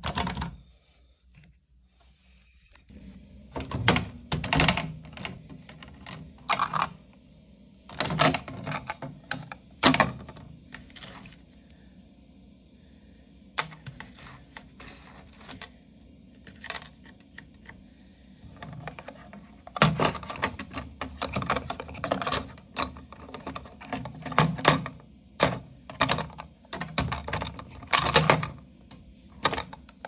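Hard plastic clicking and knocking in irregular clusters as a front-loading washing machine's drain pump filter housing and screw-in filter cap are opened and handled.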